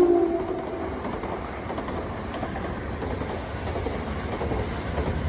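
Class 377 Electrostar electric multiple unit running past, a steady rumble and clatter of wheels on the track. A held tone fades out in the first second.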